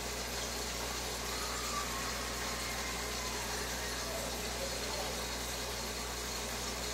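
Aquarium aeration and filtration running steadily: bubbling water over an even hiss with a low hum underneath.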